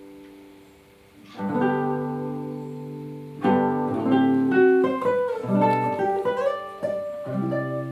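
Classical guitar played solo: a chord rings out and fades, then fresh chords are plucked about a second and a half in, followed by a melody of single notes over sustained bass notes.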